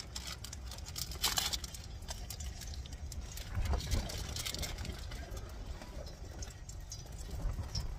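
Wind buffeting the microphone with a steady low rumble, over crinkling of a thin plastic lunchmeat wrapper as a package of sliced corned beef is opened and slices are peeled out.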